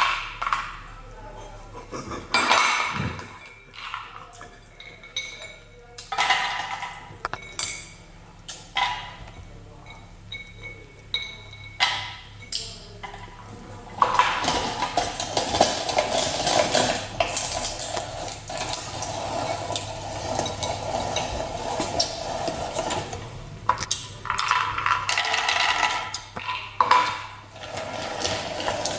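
Metal and plastic parts of a manual meat grinder knocking and clinking as they are handled. Midway a steady rough noise runs for about ten seconds, then the clinking resumes.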